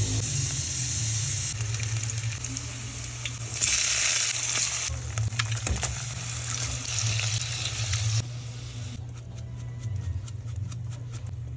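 Canned sardines in a tomato sofrito frying in oil in a pan: a steady sizzle that swells briefly about four seconds in, with scattered clicks. The sizzle drops away abruptly after about eight seconds, leaving a run of quick light clicks.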